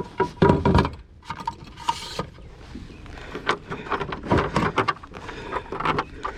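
Irregular knocks, clicks and rattles of handling aboard a kayak.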